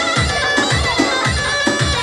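Loud Turkish folk dance music: a sustained, ornamented melody on a wind-type instrument over a steady deep drum beat of about three strokes a second.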